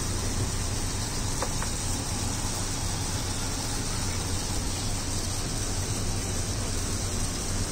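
Steady street background noise, like passing traffic, with a low hum throughout and two faint clicks about a second and a half in.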